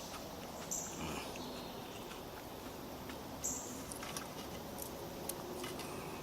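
Someone eating fried grits and bacon: faint chewing with scattered small clicks and taps, over a steady high insect hiss with a few short chirps.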